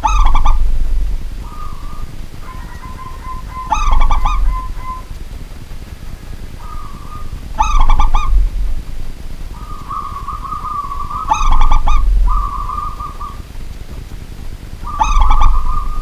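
Zebra dove (local perkutut) cooing. It repeats its song phrase about every four seconds, five times, with softer cooing in between.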